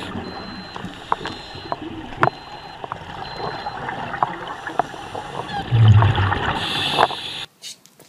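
Underwater sound of a scuba dive: steady bubbling and gurgling water with scattered sharp clicks, and a louder low rush of a scuba diver's exhaled regulator bubbles about six seconds in. The sound cuts off abruptly near the end.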